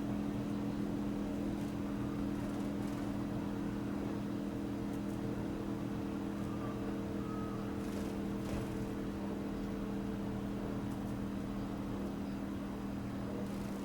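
A steady low machine hum holding a few fixed pitches, unchanging throughout, like a motor or engine running at constant speed.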